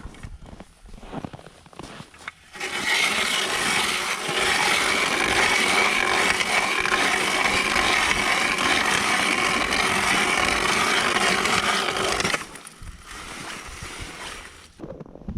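A power ice auger drilling a hole through lake ice: a steady, loud cutting and whirring with a faint motor whine. It starts about two and a half seconds in and stops abruptly after about ten seconds.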